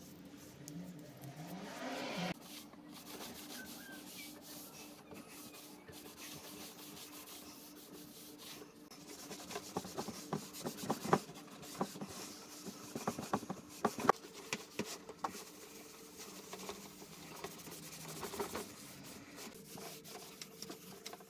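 Cloth wiping over a wooden table in short scratchy strokes, with a faint low steady hum underneath.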